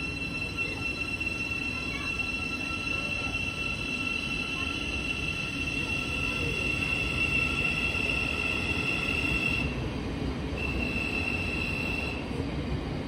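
Thameslink Class 700 electric train moving slowly out of the station, its wheels giving a steady high-pitched squeal over the rumble of the carriages. The squeal drops out about ten seconds in, returns briefly, and then stops.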